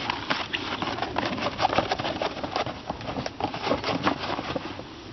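Heavy polyethylene tarp fabric crackling and rustling as a door flap is rolled up by hand, a quick irregular run of crinkles that dies down near the end.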